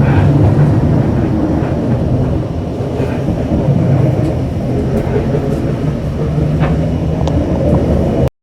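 Steady low rumble of a Scarborough RT light metro train running along the track, heard from inside the car. It cuts off abruptly near the end.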